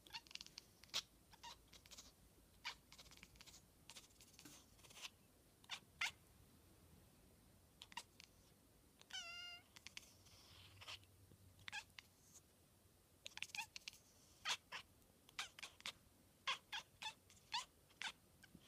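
Domestic cat chattering at a fly: quiet, short, clicky chirps in irregular clusters, with one longer warbling chirp about nine seconds in.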